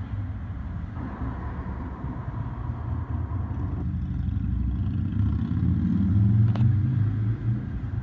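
Steady low rumble of a motor vehicle that grows somewhat louder toward the end, with a faint steady tone for the first few seconds and a single sharp click about six and a half seconds in.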